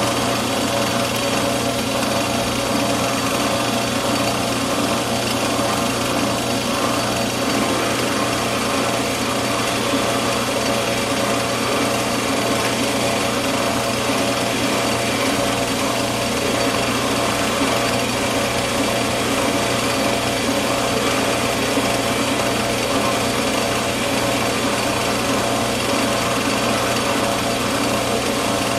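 Small metal lathe running steadily with its chuck spinning while the cutter faces off the end of a steel blank: an even machine hum with several held tones and the noise of the cut.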